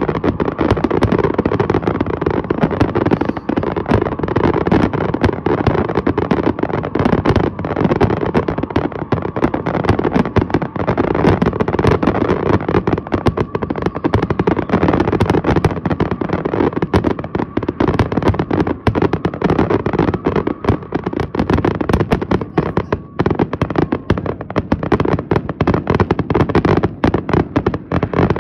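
Fireworks finale: aerial shells and comets going off in rapid, overlapping succession, making a near-continuous roll of booms and crackle.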